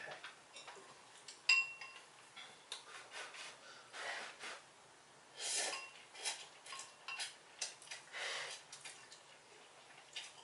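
People eating instant ramen: several noodle slurps, with chopsticks clicking against bowls and one ringing clink about a second and a half in.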